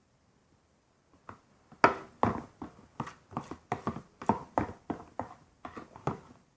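Spoon stirring a mixture of hair gel and water in a container, knocking against its sides about three times a second from about a second in.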